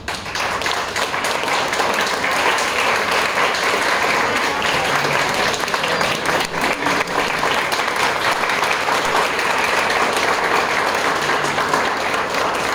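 Audience applauding: many hands clapping in a dense, steady patter that breaks out all at once.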